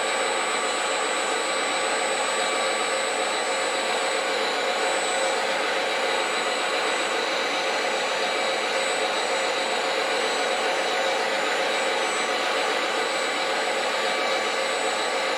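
Steady whirring whine of the small electric motors and gears of radio-controlled construction models, running without a break or change in pitch.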